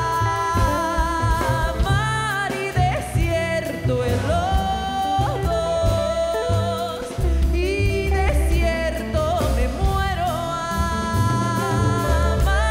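A live band playing on after the last sung words of a song: a wordless sung melody with sliding pitches over a full band with a strong, steady bass.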